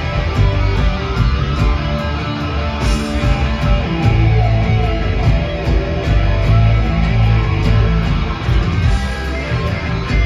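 A rock band playing live: distorted electric guitars over bass and a steady drum beat, heard from among the audience in a concert hall.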